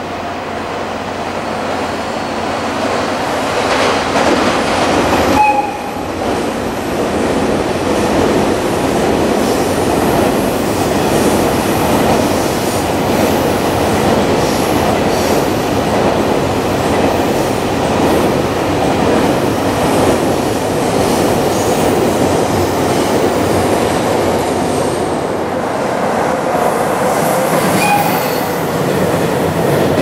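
Long freight trains running past on an elevated line: a steady rumble and clatter of container-wagon wheels over the rail joints.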